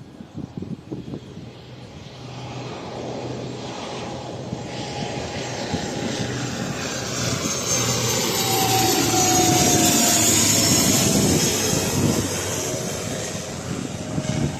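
Airliner passing low overhead on its landing approach: engine noise builds from about two seconds in, is loudest past the middle and fades near the end, with a high whine that drops slightly in pitch as it goes by.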